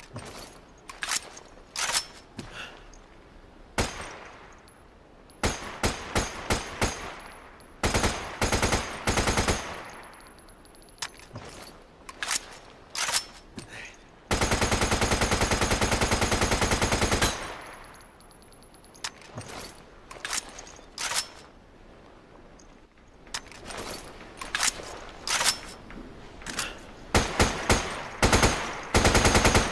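AK-74 assault rifle firing single shots and short bursts, with one unbroken full-auto burst of about three seconds in the middle. Quick bursts follow one another near the end.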